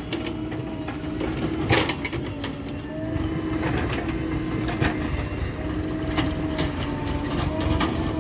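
Diesel engine running steadily at a low, even hum, with a sharp clank about two seconds in and a few lighter knocks and clicks later.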